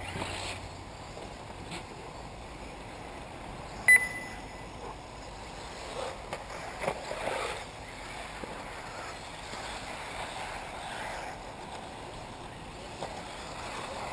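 1/8-scale electric RC buggies racing, their motor whine rising and falling as they accelerate and slow. One sharp click with a brief ring about four seconds in.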